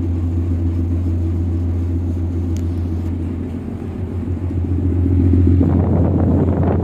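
A tugboat's diesel engine drones steadily with a low hum. About five and a half seconds in, a louder rushing noise joins it.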